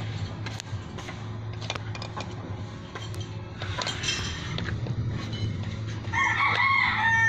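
A rooster crows once near the end, over a steady low hum and scattered light clicks.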